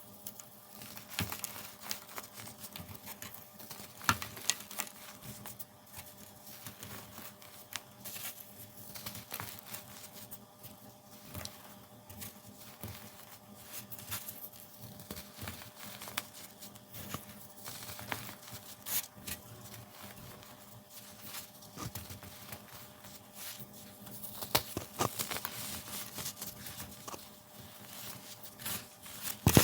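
Dried baking soda chunks being crushed at a quick pace, a dense run of crunching and crackling with sharper snaps here and there.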